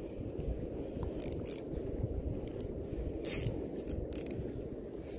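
Spinning reel being cranked in short spells, its gears giving several brief whirring rasps.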